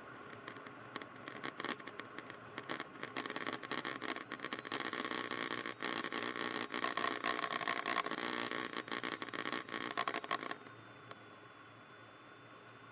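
Cessna 152 cabin noise picked up through the headset intercom: a crackly hiss full of clicks that cuts off suddenly about ten and a half seconds in.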